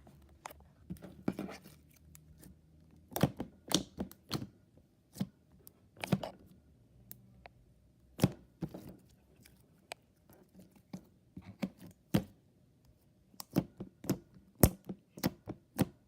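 Homemade slime being squished and stretched by hand: irregular sticky pops and clicks, coming faster near the end.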